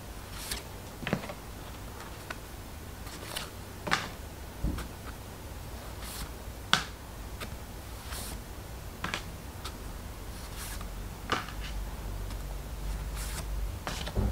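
A stack of postcards being handled and flipped through one card at a time: about a dozen irregular short taps and soft paper slides of card stock.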